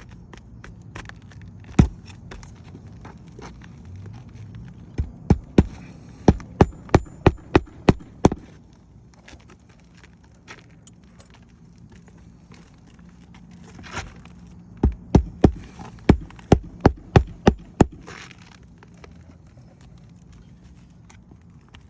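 Hammer driving roofing nails to fasten a replacement asphalt shingle: two runs of about ten quick, sharp strikes, roughly three a second, with a single blow before them.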